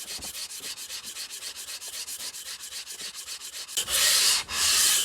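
Cast-iron sole of a No. 3 hand plane being lapped flat on an abrasive: quick, even scraping strokes about five a second, then two longer, louder strokes near the end.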